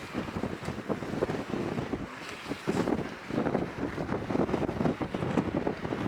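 Strong wind buffeting the microphone in uneven gusts, a low rumbling rush that swells and eases every second or so.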